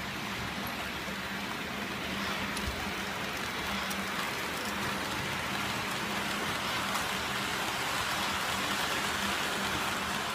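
H0 model goods train rolling past on the layout: a steady rushing clatter of many wagon wheels on the rails over a steady low hum, growing slowly louder as the train comes close.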